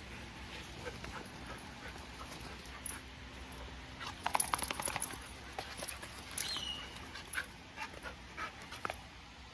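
Dogs play-wrestling: panting, with quick clicks and scuffles from mouthing and paws on artificial turf, busiest about four to five seconds in. A short, high, falling squeal comes about six and a half seconds in.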